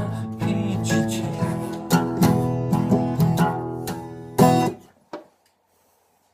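Acoustic guitar playing the closing bars of the song, ending on a final strummed chord about four and a half seconds in that rings out briefly before the music stops.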